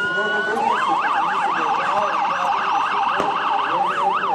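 Emergency vehicle siren: the long rising wail holds at its top, then about half a second in switches to a fast yelp, sweeping up and down about four times a second.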